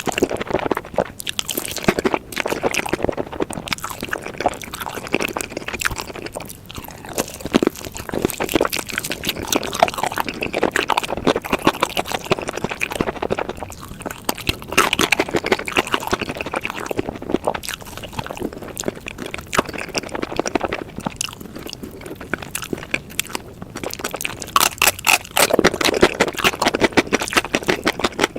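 Close-miked eating: a person chewing wet, sticky food with dense runs of mouth clicks and occasional crunches, in bouts that swell and ease.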